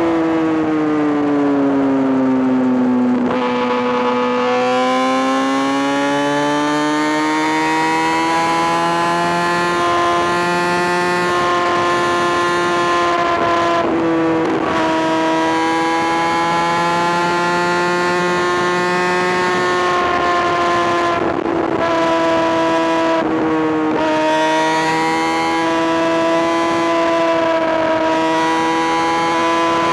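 Kawasaki ZX-6R inline-four sport-bike engine running hard with a high, sustained note. The pitch sags a few seconds in, then climbs back and holds, broken briefly a few times around the middle and later.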